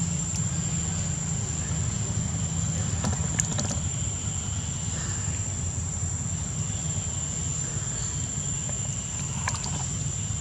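Steady low rumble with a constant high-pitched whine over it, and a few light splashes as a young macaque wades in a shallow pool, a cluster about three seconds in and another near the end.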